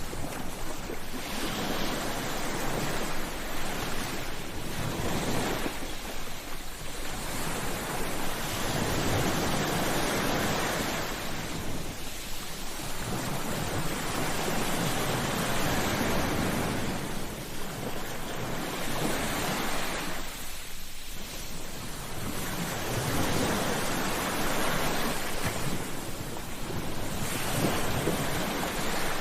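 Sea waves breaking and washing up a beach, a steady surf noise that swells and ebbs every few seconds.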